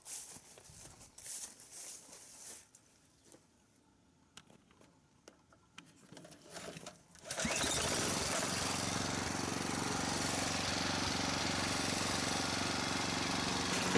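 Faint knocks and handling clicks, then about halfway through a small engine on a pesticide power sprayer starts suddenly and runs steadily at a constant speed, ready for spraying.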